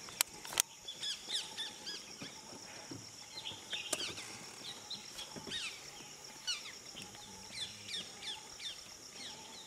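Wild birds chirping: many short, quick falling calls overlapping throughout, over a steady high thin hum. Two sharp clicks come just after the start.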